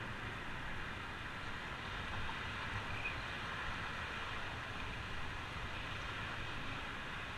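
Steady rushing noise of a bicycle ride heard through a GoPro: wind over the camera and tyres rolling on pavement, with road traffic passing alongside.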